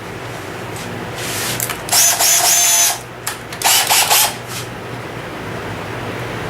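A power tool working wood: two short bursts of cutting, the first about a second long and the second a little shorter, over the steady hum of a running motor.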